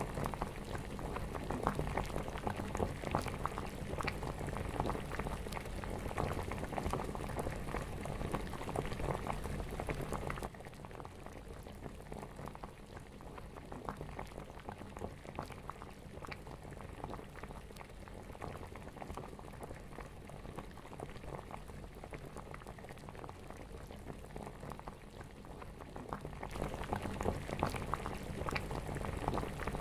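Stew bubbling and simmering in a pot on the stove, a dense steady crackle of popping bubbles. It drops quieter about ten seconds in and comes back louder near the end.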